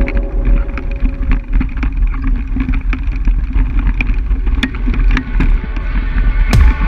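Hand-cycle riding over a gravel track, with a steady rumble of wind buffeting the action camera's microphone and irregular crunches from the knobby tyre on the stones. Near the end, electronic music with a heavy, regular kick-drum beat comes in.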